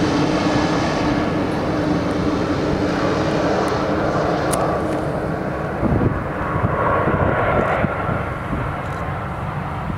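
Jet engines of an Airbus A320-family airliner on final approach, a steady whine over a broad rumble. About six seconds in the sound changes, with a brief jump in loudness, to the engines of a twin turboprop taxiing.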